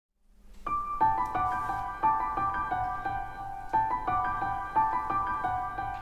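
Background piano music: a gentle melody of struck, ringing notes that starts about half a second in, after a moment of silence.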